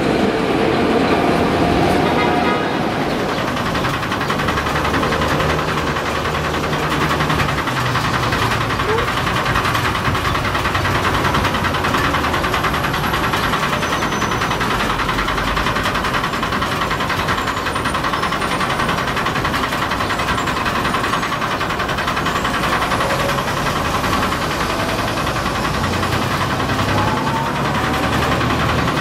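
Street traffic with a tram. For the first few seconds a tram moving off through a curve gives a squeal of several steady high tones over the traffic, and after that a steady traffic rumble runs on.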